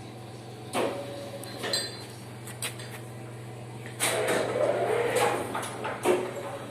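Metal clanks and clinks, with a longer rattling, scraping stretch a little past the middle, over a steady low hum.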